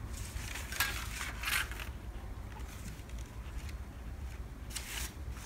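Pattern paper and a muslin piece rustling as they are handled on a cutting table, in three short bursts: about a second in, half a second later, and near the end.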